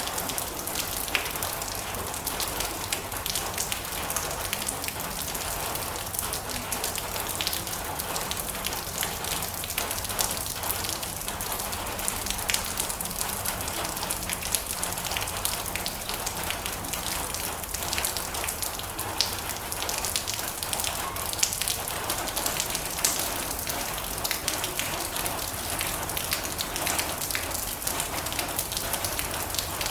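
Steady rain on a metal roof: a constant hiss with many sharp individual drop taps scattered through it.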